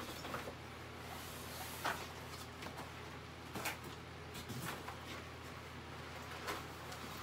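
Handling noise from a ring light's padded soft carrying case being opened: about five short rustles and light knocks as a cardboard insert is pulled out, over a steady low room hum.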